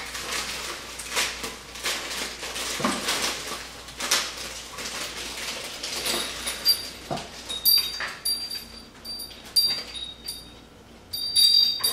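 A small metal hanging chime being handled: rustling and clicks at first, then from about halfway its rods are knocked together again and again, giving short, high, bell-like rings.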